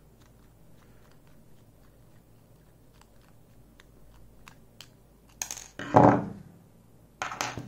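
Small metal lock parts and tools being handled on a workbench: faint scattered ticks, then a few louder clinks and knocks in the last couple of seconds.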